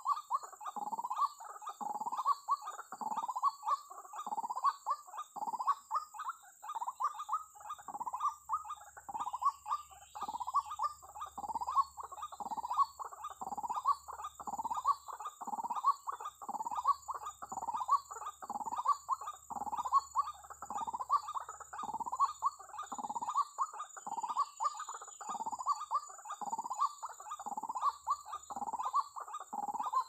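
White-breasted waterhen (ruak-ruak) calls, a harsh call repeated over and over in a steady, unbroken rhythm, with a steady high insect-like whine behind.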